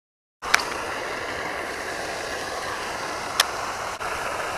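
Steady outdoor background noise, starting after a short gap of silence, with two sharp clicks: one about half a second in and one about three and a half seconds in.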